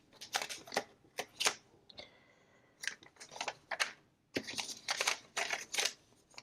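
Paper instruction sheets rustling and crinkling as they are unfolded and leafed through by hand, in a string of short, irregular rustles.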